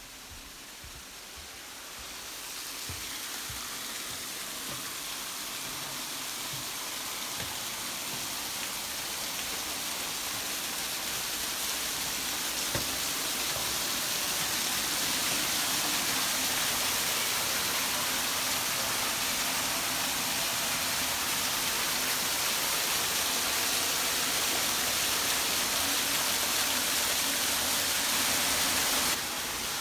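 Rushing water as a steady hiss that grows louder over the first dozen seconds or so, then drops suddenly near the end.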